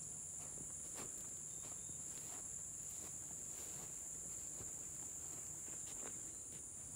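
A steady high-pitched chorus of insects droning without pause, with soft footsteps in the grass beneath it.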